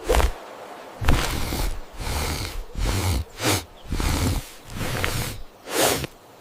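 Cartoon sound effects of a sleeping bear's nose being agitated: a run of short, noisy breathy puffs and sniffs, about one a second, as he is prodded to snore.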